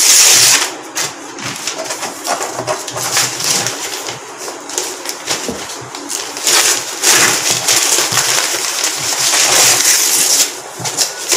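Newspaper being torn and ripped off a drawing board in strips, with rustling and crinkling as the pieces are pulled away. Loud rips near the start and again from about six and a half seconds in.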